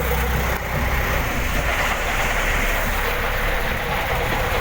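Small fishing boat's engine running steadily, a low drone under a constant rush of wind and sea.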